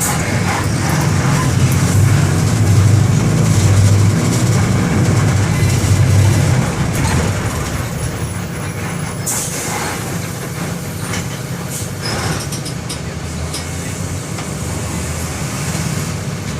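Mercedes-Benz OM-924 LA 208 hp four-cylinder inline diesel running, heard from inside the bus. It pulls hard for about the first seven seconds, then eases off and runs quieter. A short hiss comes about nine seconds in.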